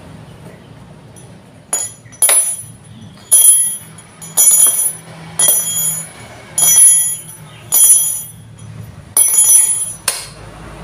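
A small bell rung in single dings about once a second, nine times. Each ding starts sharply and rings briefly on several high, clear tones.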